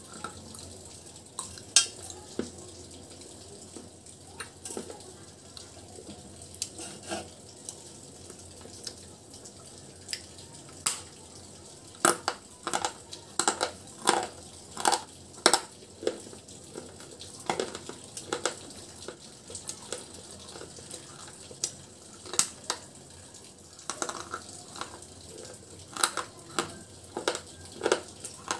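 Close-miked crunching and chewing as a person bites pieces of baked clay pot coated in powder: irregular sharp crunches, thickest from about twelve to sixteen seconds in and again near the end.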